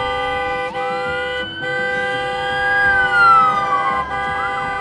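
Police escort siren wailing: the pitch rises about a second in, holds, then falls slowly, and switches to a faster yelp near the end, over a steady held tone.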